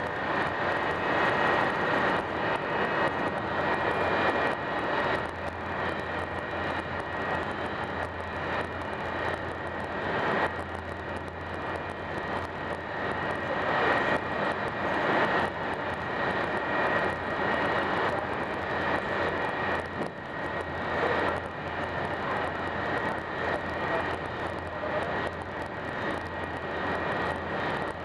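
Steady rushing noise of an Italo ETR 575 (Alstom AGV) high-speed train running at speed, heard from inside the passenger cabin, with a steady high whine over it.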